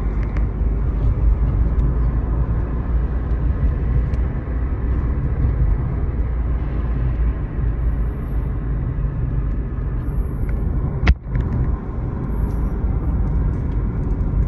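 Steady low rumble of a car's engine and tyres heard from inside the cabin while driving. One sharp click about three-quarters of the way through.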